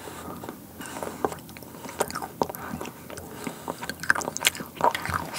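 Crunching and chewing of a mouthful of chocolate bark topped with crisp dried fruit and nuts, close to the microphone: a run of irregular sharp crunches.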